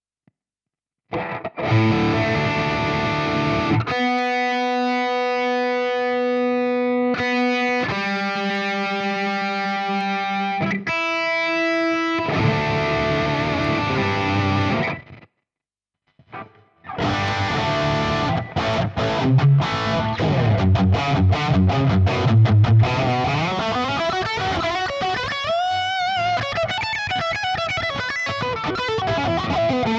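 Electric guitar played through Fractal Audio FM9 amp-modeler presets with an overdriven, distorted tone: a few long held notes, a gap of silence of about two seconds, then busier distorted playing with bent notes.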